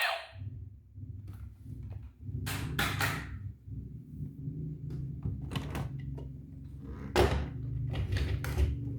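Scattered knocks and clicks, as of small hard objects being handled and set down, over a low steady hum.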